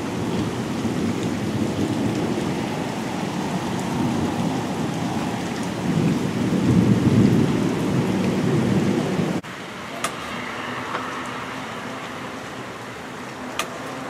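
Thunder rumbling over steady rain, swelling to its loudest about six seconds in. About nine seconds in the sound cuts off abruptly and gives way to quieter, even rain with a few sharp ticks.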